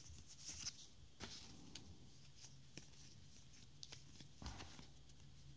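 Faint handling of freshly opened Z/X trading cards: soft rustles and a few scattered light ticks as the cards are slid and flipped through in the hands.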